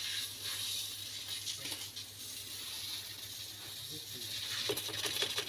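Steady hiss of R134a refrigerant flowing through the charging hose into the refrigerator during gas charging, over a low steady hum. A quick run of clicks or rattling comes near the end.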